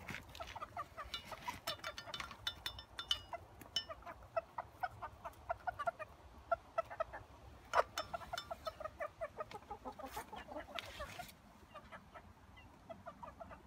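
A small flock of hens clucking rapidly in short repeated notes, several a second, excited at being fed slugs, with scattered sharp taps as they peck the slugs off a metal trowel.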